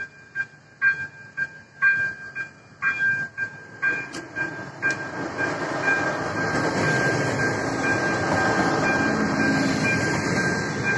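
Electronic bell of an AŽD 97 level crossing striking about twice a second. From about four seconds in, a ČD RegioShark (class 844) diesel multiple unit passes through the crossing, and its steady running noise becomes the loudest sound while the bell keeps sounding underneath.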